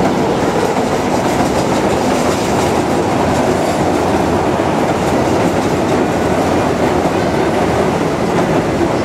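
Keihan Electric Railway train passing close by, its wheels rolling on the rails in a loud, steady rumble.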